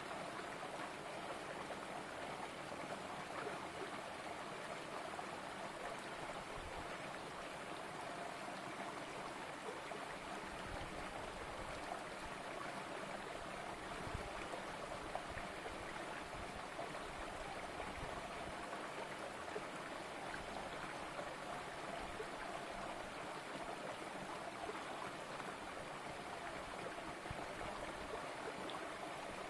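A small, shallow stream flowing steadily over stones and spilling between boulders, a continuous even rush of water.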